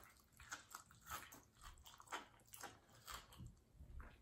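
Faint chewing and biting of a person eating asparagus, with soft irregular mouth clicks.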